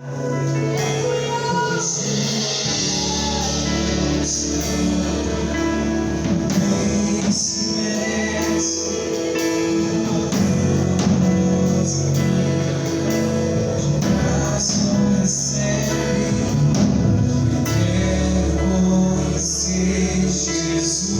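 A live gospel worship band playing, with singing over guitar, bass and regular percussion strokes.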